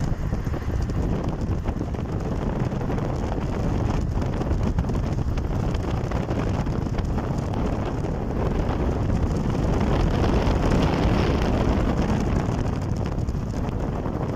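Wind buffeting the microphone from a moving car, over a steady low rumble of road and engine noise; it grows a little louder about ten seconds in.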